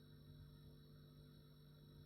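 Refrigerator running: a faint, steady low hum with a few steady tones above it.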